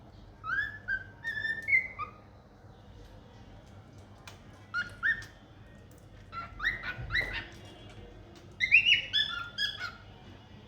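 Cockatiel chirping: short rising whistled calls in about four bursts of several chirps each, with pauses in between.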